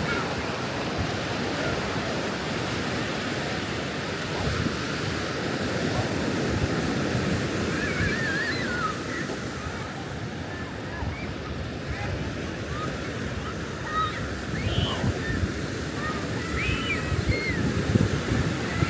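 Sea waves washing onto the beach in a steady surf noise, with wind buffeting the microphone. Faint distant voices come and go in the background.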